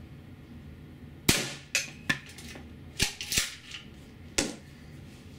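APS CAM870 CO2 airsoft shotgun firing 0.68 cal rubber rounds and being pump-racked between shots: six sharp cracks and clacks, the loudest about a second in with a short ringing tail, as the rounds hit the shaking target trap.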